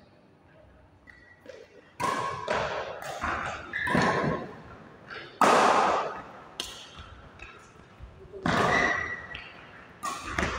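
Badminton racket strings striking a shuttlecock in a fast rally, a string of sharp hits about a second apart that starts after a quiet opening couple of seconds and echoes in a large hall.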